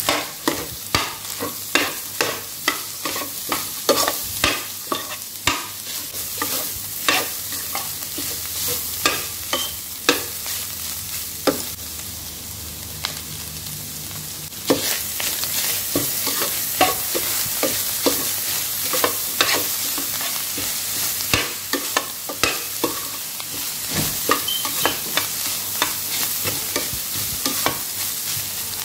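Minced chicken, cabbage and carrot filling sizzling in a steel pan on high heat while a spatula stirs it, scraping and knocking against the pan many times at an irregular pace. The sizzle gets louder about halfway through.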